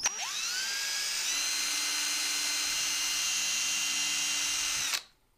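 Cordless drill spinning up over about a second, then running at a steady high whine as it bores a small hole into tape-wrapped PVC pipe, stopping abruptly near the end.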